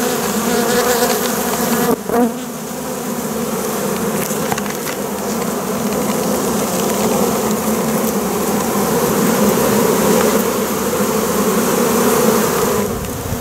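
A large freshly hived colony of honey bees buzzing loudly and steadily, heard close over the massed bees. A brief knock sounds about two seconds in.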